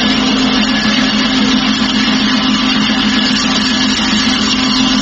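Grindnoise music: a loud, unbroken wall of distorted noise over a steady low droning tone.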